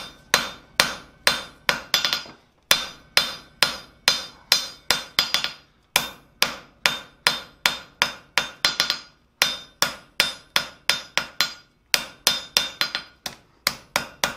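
Hand hammer striking a red-hot bar of high-carbon tool steel on an anvil, drawing it out into a small slot drift. The blows come steadily, about two to three a second, each with a short metallic ring, and there is a brief pause every few seconds.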